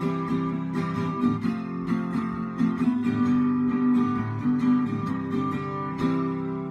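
Acoustic guitar strummed in a steady rhythm, ending on a last chord about six seconds in that is left to ring out.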